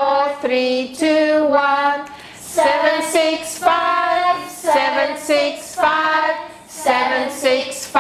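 Several women singing a children's counting song together, in a steady rhythm of held notes.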